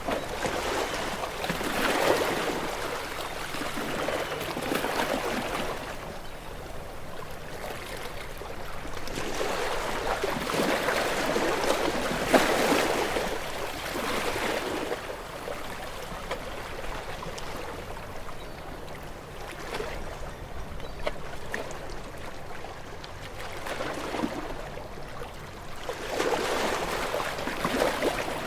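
Ocean waves washing against rocks, the surf swelling and receding every few seconds with water trickling and gurgling between the surges.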